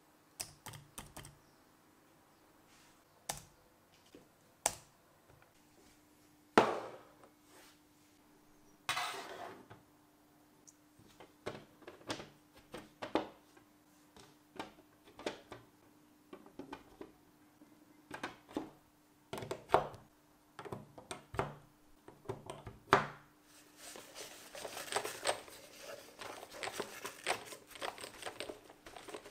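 Cylindrical lithium-ion cells set one at a time into a plastic cell holder: separate hard clicks and knocks of cell casings against plastic. Near the end they turn into a dense, fast clatter as cells are pushed in row after row.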